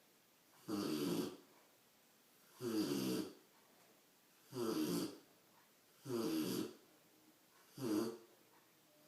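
Rottweiler puppy snoring in its sleep: five regular snores, one roughly every two seconds, each lasting about half a second with quiet breathing between.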